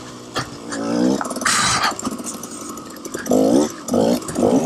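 Two-stroke dirt bike engine (KTM 300 XC-W) revving in short bursts as the rider works the throttle through the trail, with a short rushing noise about a second and a half in and three quick revs near the end.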